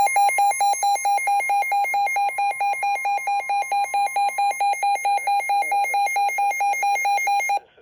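Emergency alert alarm for a severe thunderstorm warning: a harsh electronic beep repeating rapidly and evenly, about four beeps a second, with a faint steady tone underneath for roughly the first half. It cuts off suddenly just before the end, ahead of the spoken warning.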